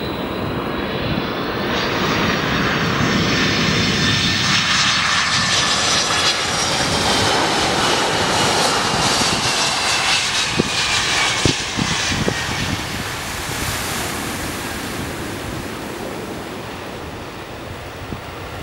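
Boeing 747-400 jet airliner's four turbofan engines at landing approach power as the aircraft flies past. The engine noise swells, with a whine that falls in pitch as it goes by, then fades as it moves away toward touchdown.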